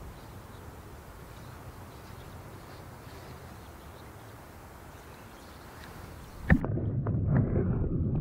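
A steady, even hiss of open-air ambience, then about six and a half seconds in a sudden click and a much louder, irregular low rumble and sloshing from a camera under the water.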